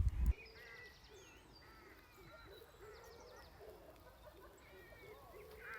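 Countryside birdsong: many small birds chirping and warbling in short overlapping phrases, with lower wavering calls beneath. A brief low rumble at the very start drops away after a fraction of a second.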